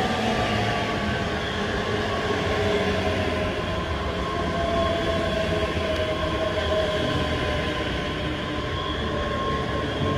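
ScotRail Class 385 electric multiple unit passing close by at speed: steady wheel-on-rail rumble with a motor whine that sinks slowly in pitch.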